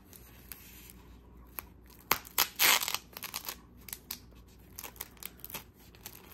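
White wrapping crinkling and rustling as a long wrapped bundle is handled and unrolled by hand, with scattered crackles and one louder burst of crinkling about two seconds in.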